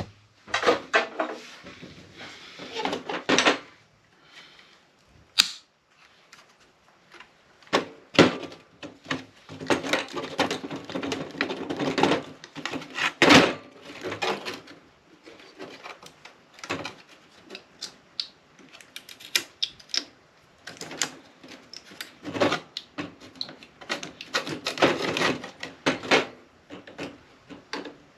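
Hand tools and loose metal parts clicking, rattling and knocking while an APC battery backup unit is taken apart for scrap, with a few sharper knocks among the clatter.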